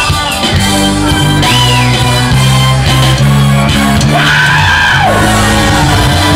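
Live band playing loud amplified dance music, with a steady, changing bass line; shouts and yells from the dancing crowd are mixed in.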